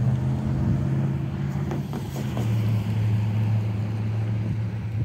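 A steady engine hum, dropping a little in pitch about two and a half seconds in.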